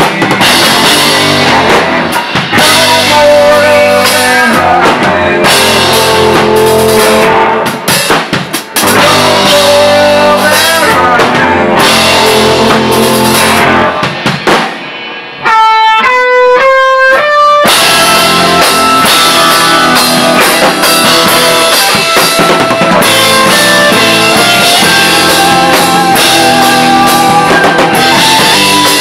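Live rock band playing with electric guitar and drum kit. About fifteen seconds in the band drops out for a couple of seconds, leaving a few clear single notes stepping up and down, then the full band crashes back in.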